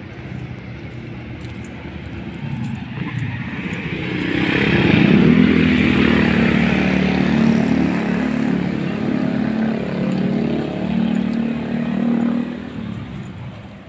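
An engine running close by, growing louder over the first few seconds, holding steady and loud for about eight seconds, then dropping off near the end.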